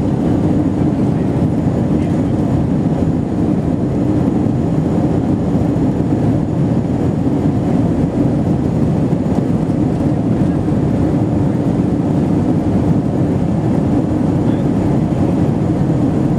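Airliner cabin noise: the jet engines and the rush of air over the fuselage, heard from inside the cabin as a loud, steady low drone.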